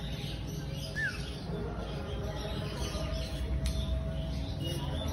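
Scattered bird chirps, including one short falling whistle about a second in, over a steady low rumble.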